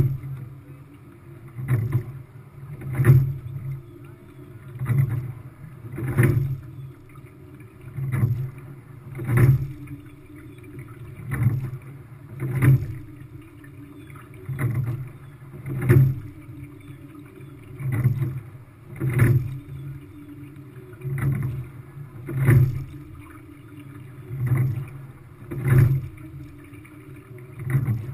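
Quad sculling shell being rowed: regular knocks of the oars working in their oarlocks and the blades in the water, coming in pairs about every three seconds in step with the stroke, over a low rumble of water along the hull.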